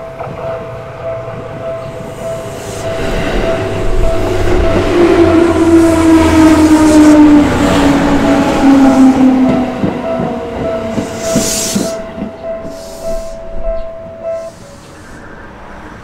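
Japanese level-crossing alarm bell ringing steadily while a Seibu 4000 series electric train passes through the crossing. The train's motor whine falls in pitch as it goes by, and its wheels clack over the rail joints. The bell stops a couple of seconds before the end, as the train clears.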